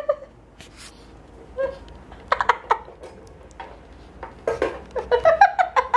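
A woman laughing in short broken bursts, strongest in the last second and a half. A few light clicks and knocks come before it in the first second.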